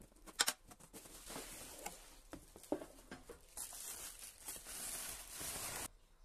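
Cardboard box and bubble wrap handled with gloved hands as a packaged valve cover is unboxed: scattered clicks and crinkles at first, then a steady rustle that stops abruptly near the end.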